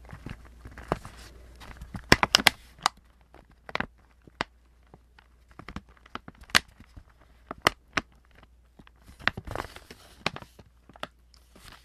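Plastic pouch of Brookside dark chocolate açaí & blueberry candies crinkling and crackling as it is handled close to the microphone, in scattered sharp crackles with a dense cluster about two seconds in.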